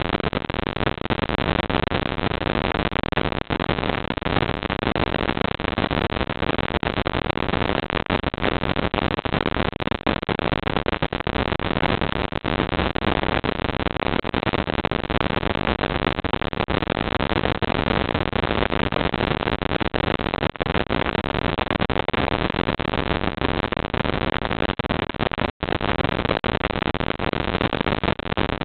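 Steady, even hiss from a CCTV camera's built-in microphone, with no distinct events, broken by one sudden momentary dropout near the end.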